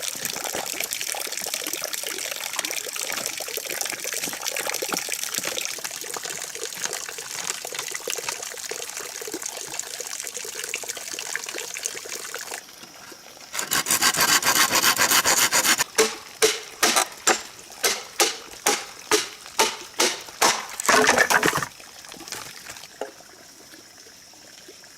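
Steady rush of running water, then a hand saw cutting through bamboo: a couple of seconds of continuous sawing, followed by about ten quick back-and-forth strokes, roughly two a second, and a last short stroke before it stops.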